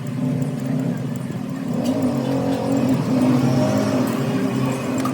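A motor running steadily with a low, pitched hum that grows somewhat louder after about two seconds.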